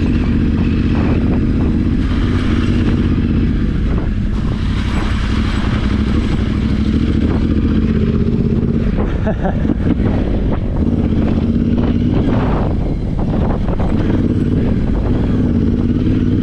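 Yamaha Ténéré 700's parallel-twin engine running at low speed on a rough dirt lane. The engine note dips and picks up again a few times, with frequent knocks and rattles from the bumpy ground.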